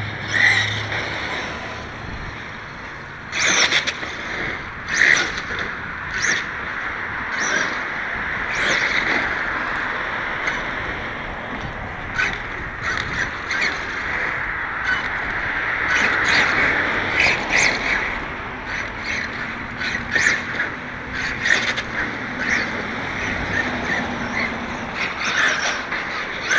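Traxxas E-Revo electric RC truck with a Castle brushless motor running on asphalt: motor whine and tyre noise swelling and fading as it speeds up and slows, with many short sharp clicks and knocks scattered through it.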